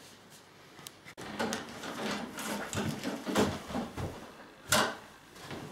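A man moving about a room: uneven footsteps and shuffling, then one loud, sharp knock about three-quarters of the way through.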